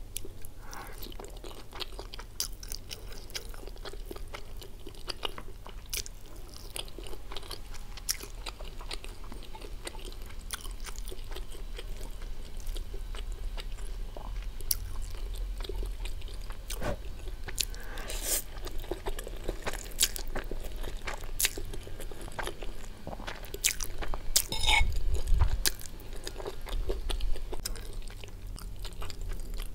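Close-miked chewing of stir-fried Maggi instant noodles and fried egg, with many sharp wet mouth clicks; the chewing grows louder for a couple of seconds near the end.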